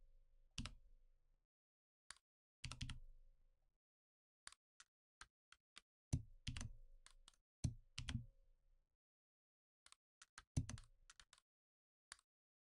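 Faint, irregular clicks of a computer keyboard and mouse, in single presses and small clusters, some with a short dull thud.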